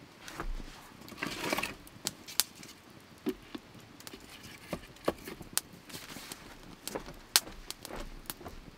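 Irregular light clicks and taps, with a short spell of rustling about a second in.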